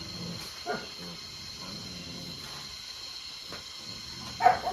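A dog barks loudly near the end, over a steady background hiss with a faint high steady tone.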